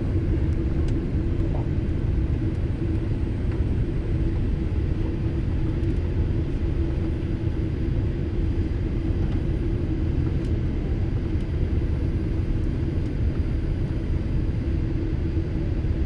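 Airliner cabin noise on the approach to landing: a steady low rumble of engines and airflow, with a constant hum running through it.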